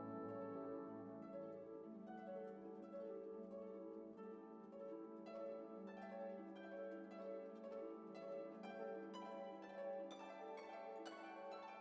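Background instrumental music: a steady run of plucked notes over held low notes.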